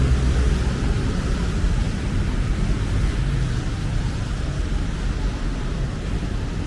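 Steady city street noise: a low traffic rumble under an even hiss, slowly easing off.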